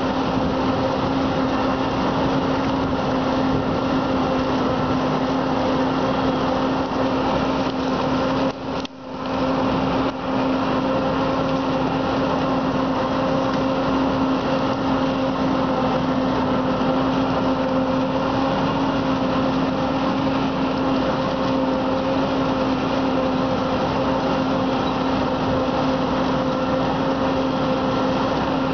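Self-propelled forage harvester chopping standing maize, with a tractor and silage trailer running alongside: a steady machine drone with a constant humming tone. The sound briefly drops out about nine seconds in.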